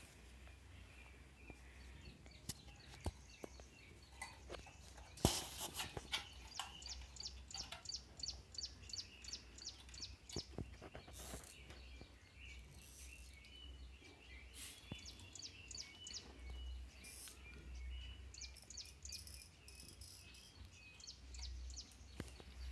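Birds chirping in the background, some in quick repeated series, with occasional sharp clicks and taps from small parts and wires being handled; the loudest click comes about five seconds in.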